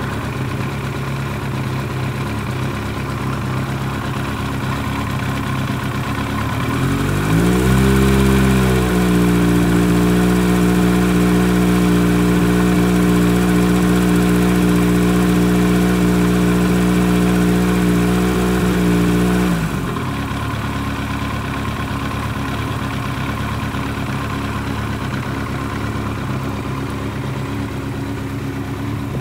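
Kawasaki Z1000R2's air-cooled inline-four engine idling hot, with the oil at about 100°C. About seven seconds in, a louder, steady hum rises in and holds for about twelve seconds, then cuts off suddenly, leaving the plain idle.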